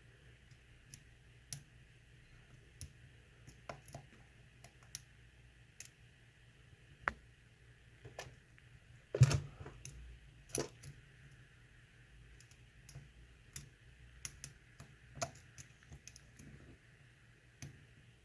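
Irregular small clicks and ticks of a lock pick and tension wrench working the pins of a Daz Evers-made high-security lock held in a false set, feeling for spool pins, with a sharper click about nine seconds in.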